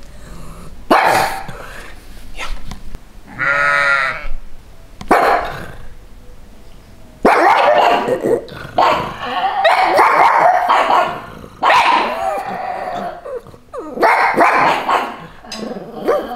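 A sheep bleats once, a wavering call about three and a half seconds in. A pug barks in a few short bursts early on, then barks repeatedly and loudly from about seven seconds on.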